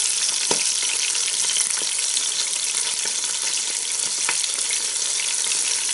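Braising steaks searing in hot melted lard in a Ninja Foodi pot on the high sear setting: a steady sizzle with scattered crackles as the fat spits.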